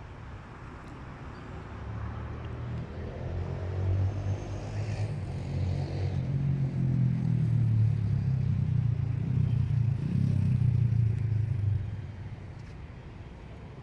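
A motor vehicle's engine running nearby, a low drone that builds over a few seconds, holds, then falls away abruptly near the end.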